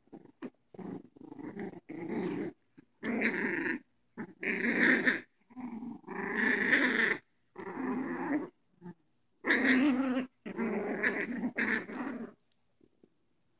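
Puppies growling in play while tugging at a plush toy between them, in a string of growls each about a second long with short pauses, stopping shortly before the end.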